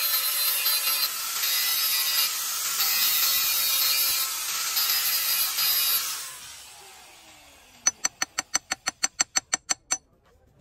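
Angle grinder with a thin disc grinding a steel block, steady for about six seconds, then switched off and spinning down with a falling whine. Near the end comes a fast even run of sharp clicks, about ten a second, lasting about two seconds.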